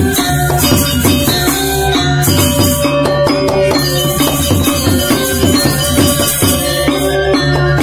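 Balinese gamelan gong ensemble playing: bronze metallophones ringing a quick run of short tones over low drum and gong tones, with a constant high metallic jangle.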